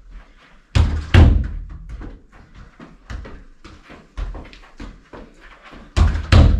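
A football being passed against a wall and played with the feet. Loud thuds come about a second in and again near the end as the ball is struck and rebounds off the wall, with lighter taps of foot touches on the ball between them.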